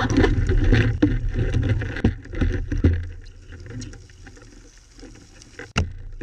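Underwater handling noise in a speargun-mounted camera housing: a low rumble of water and movement, with several sharp knocks as the speargun's muzzle and rubber band are handled. The rumble is strongest in the first half and dies down, and one louder knock comes near the end.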